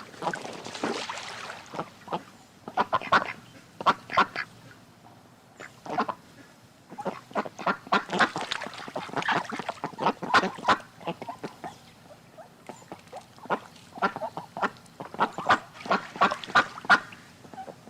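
Ducks quacking in quick runs of short calls, bout after bout with short pauses between.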